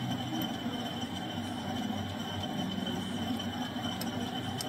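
Low steady workshop hum with a few faint metallic clicks and a sharper clink near the end, as a washer and nut are fitted onto a threaded bar in a stopped lathe chuck.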